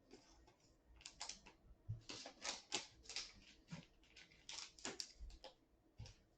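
Trading cards being handled: faint, irregular clicks and slides of card stock.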